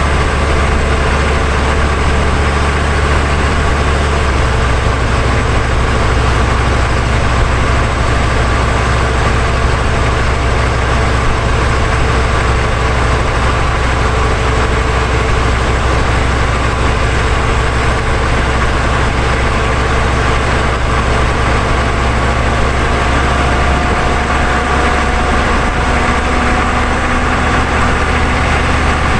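Steady low drone and road rush picked up under a 1999 GMC 3500 pickup with a 6.5 turbo diesel, driving at speed. The low drone shifts pitch about four seconds in and again near the end.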